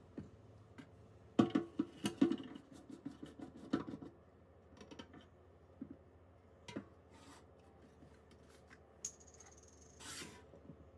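Clicks and knocks of small household objects being handled: a quick run of taps about one and a half to four seconds in, then a few scattered single taps and a short hiss near the end.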